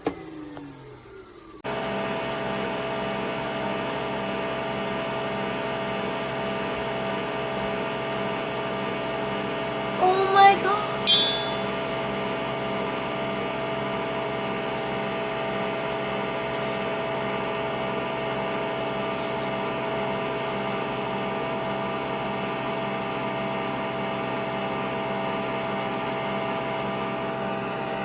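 Nespresso Vertuo Pop+ coffee machine brewing, its motor spinning the capsule with a steady whirring hum on one constant tone. The hum starts about two seconds in. A brief pitched sound comes about ten seconds in.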